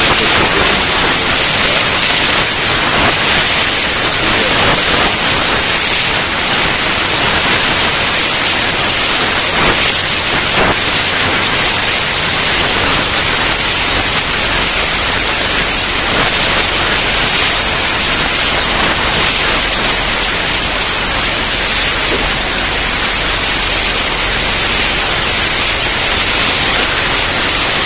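A loud, steady hiss like radio static, even and unchanging throughout.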